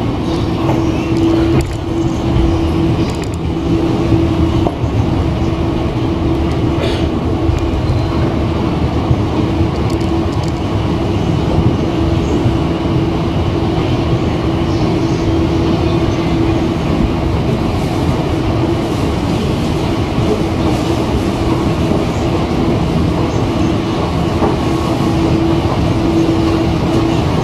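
Mitsubishi Electric escalator with metal steps running steadily upward under a rider: an even low rumble with a constant hum.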